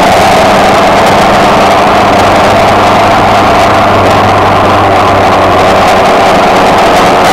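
Suzuki Bandit motorcycle's inline-four engine running steadily at cruising speed, under a loud, even rush of wind and road noise.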